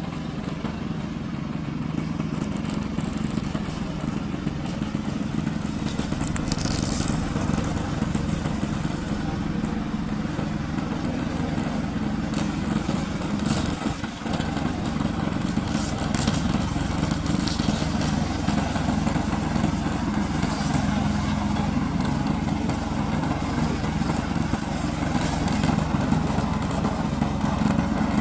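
Engine of a remote-controlled slope lawn mower running steadily under load, with a few brief high crackles along the way.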